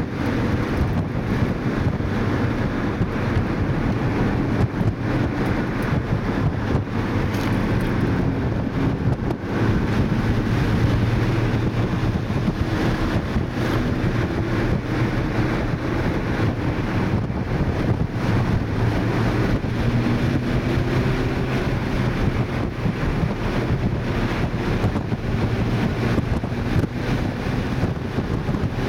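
2012 Mini Cooper S's turbocharged 1.6-litre four-cylinder heard from inside the cabin at track speed, its note rising and falling with the revs, under heavy wind and road noise.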